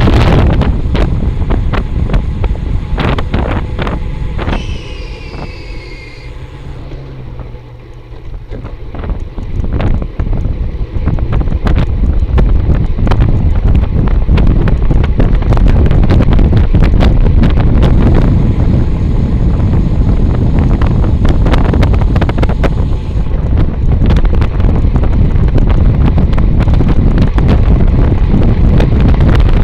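Wind buffeting the microphone of a camera on a moving bicycle, a steady low rumble. It eases for a few seconds, when a short high squeal falls slightly in pitch, then builds back up.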